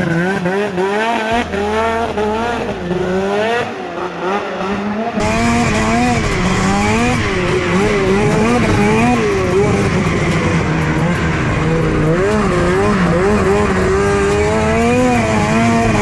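Two-stroke snowmobile engine revving up and down in quick swells, on and off the throttle around a track. About five seconds in, the sound abruptly turns fuller, with a hiss laid over the engine.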